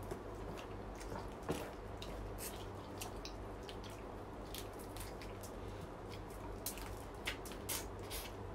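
Eating seafood by hand: wet mouth and finger sounds, chewing and lip smacks, with scattered short clicks of shell, over a steady low hum.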